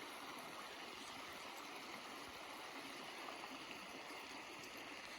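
Water running steadily down a small runoff channel into a stock tank, a faint, even rush.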